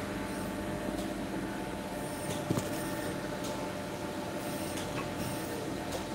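Steady hum of a running electric machine motor, with a light knock about two and a half seconds in.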